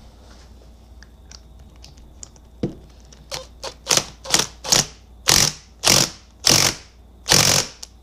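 Impact wrench run in about ten short bursts, each a rattling whirr and the later ones longer, driving the special hexagonal nut tight on a Yamaha QT50 final drive.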